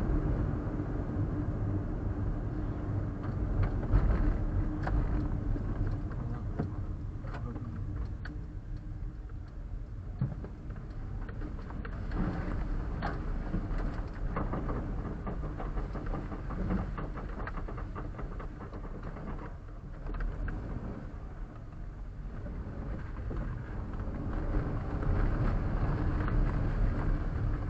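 Suzuki Super Carry kei truck's 660 cc three-cylinder running under way, with a steady drone and irregular knocks and clatter throughout. The uploader traced the clunking heard in 4WD to snow and ice packed onto the underside.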